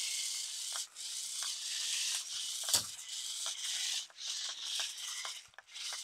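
Small electric motors and gears of a 4WD 1/20-scale RC monster truck with mecanum wheels whirring as it drives across carpet. The whirr stops briefly about a second in, about four seconds in and near the end, with a few light clicks.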